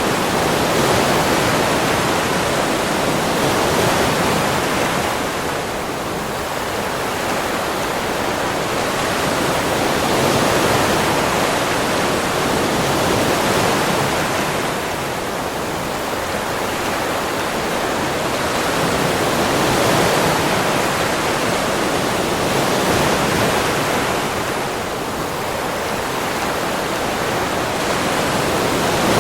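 Ocean surf: a continuous wash of breaking waves that slowly swells and eases every several seconds.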